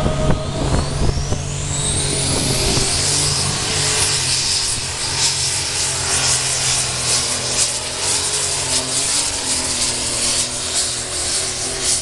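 Super Stock pulling tractor's turbocharged engine running flat out under load while dragging a weight-transfer sled. A high turbo whine rises over the first two seconds or so, then holds as a steady whistle over the engine's deep drone.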